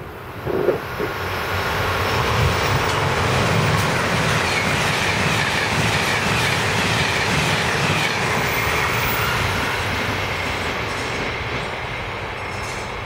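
Amtrak passenger train of Amfleet coaches passing close by at speed: a steady rush of wheel and rail noise that builds over the first two seconds, holds, then slowly fades near the end.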